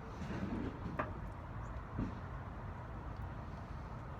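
A couple of small sharp clicks, about a second apart, as the parts of a mortise lock's opened case are handled and worked, over a steady low rumble.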